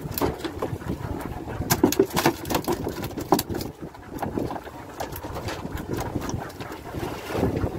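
Wind buffeting the microphone on an open fishing boat at sea, a rough, uneven rumble, with a run of sharp clicks and knocks about two to three and a half seconds in.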